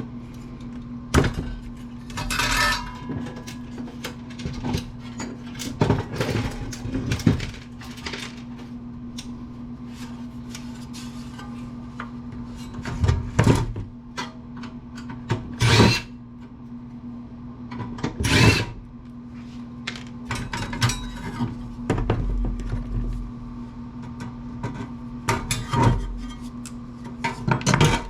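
A power screwdriver or drill runs in short bursts while screws come out of a steel amplifier chassis. Metal parts click and clatter in between, over a steady low hum.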